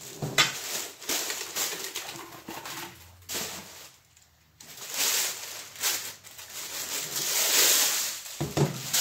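Plastic packaging rustling and crinkling while cookware is unpacked, the plastic wrapping pulled off a pot. The rustling stops briefly about three seconds in, then comes back louder, loudest a little before the end.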